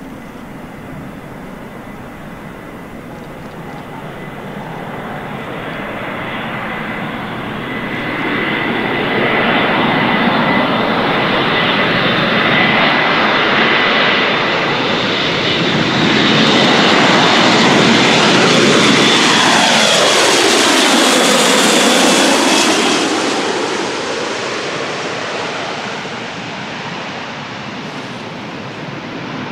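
Airbus A400M's four turboprop engines with eight-bladed propellers, growing louder on a low approach with a steady high whine. About twenty seconds in the pitch sweeps down as it passes, and then the sound fades.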